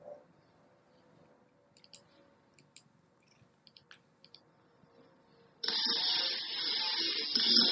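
A few faint, scattered clicks over near silence, then music starts abruptly and loudly about five and a half seconds in.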